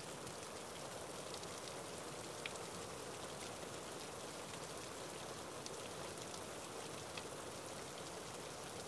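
Steady rain falling, an even hiss with a few separate drops ticking now and then.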